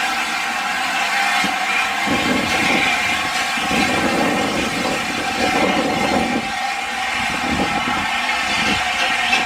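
LNER A4 steam locomotive 4498 running with its train: a steady hissing, ringing mix of steam and rail noise, with a lower rumble that swells in about two seconds in and comes and goes.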